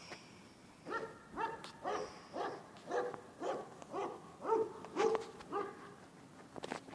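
A dog barking repeatedly, about ten short barks at roughly two a second, starting about a second in and stopping near the end.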